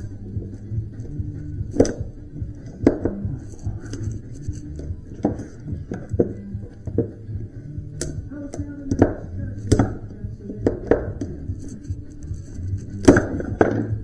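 Copper windings being stripped out of cut electric motor stators: about a dozen irregular sharp clicks and knocks of tools on copper and plastic insulation, the loudest near the end, with music playing in the background.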